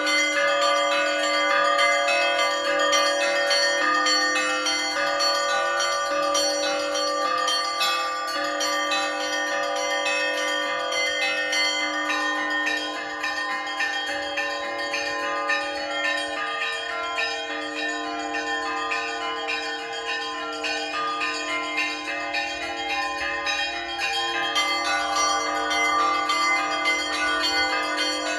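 Orthodox church bells ringing in a continuous peal: many bells of different pitches struck in quick succession, with the deep tones of larger bells sounding steadily underneath.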